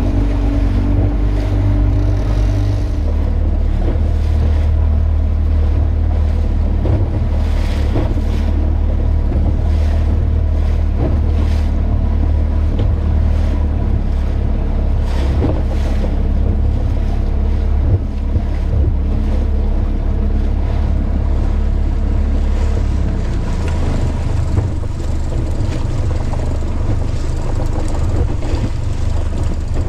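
Small outboard motor running an inflatable boat underway, with water rushing past the hull and wind buffeting the microphone. The engine's low hum shifts a few seconds in and again about three-quarters of the way through.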